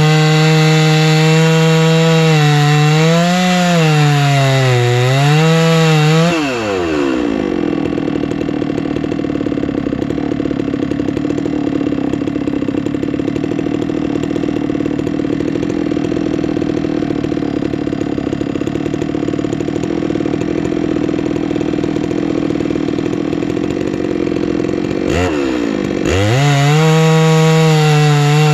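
Two-stroke chainsaw on a chainsaw mill ripping a tamarack log at full throttle, the revs wavering under load. About six seconds in the engine note drops sharply to a lower, quieter idle, and near the end the revs climb back up to full throttle.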